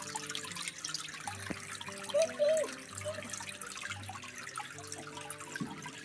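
Spring water trickling and splashing steadily into a shallow stone-edged pool. A short pitched sound that rises and falls comes a little over two seconds in.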